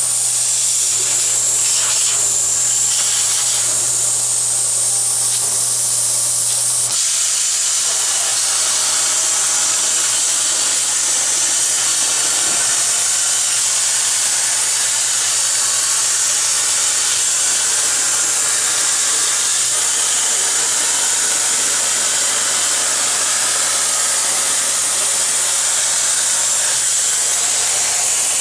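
CNC plasma cutter torch cutting metal plate: a loud, steady hiss of the arc and air stream, with a low hum underneath that drops back about seven seconds in.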